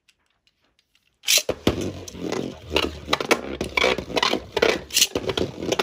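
Beyblade Burst spinning tops launched into a plastic stadium with a sudden rip of the launcher about a second in, then spinning and scraping across the stadium floor with many quick clicks and knocks.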